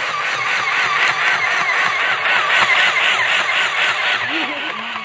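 Portable electric sewing machine running steadily, its motor humming and needle stitching in a rapid, even rhythm.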